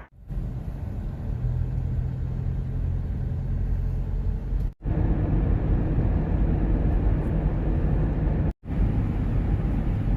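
Motor vehicle running: a steady low engine drone with road rumble. It cuts to silence briefly twice, about halfway through and again near the end.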